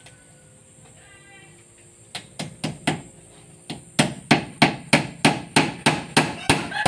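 Hammer nailing a wooden board onto a plank wall. After about two quiet seconds come four quick strikes, a short pause, then a steady run of strikes at about three a second.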